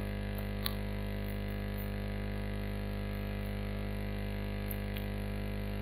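A steady low electrical hum with a buzz of many overtones, unchanging throughout. One sharp keyboard click about two-thirds of a second in.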